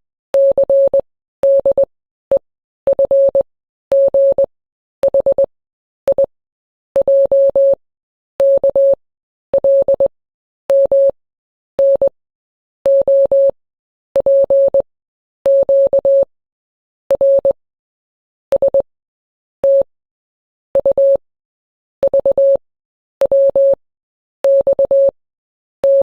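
Morse code alphabet sent as a single steady beeping tone, letter after letter: groups of short and long beeps (dots and dashes) with a pause after each letter, about one letter a second.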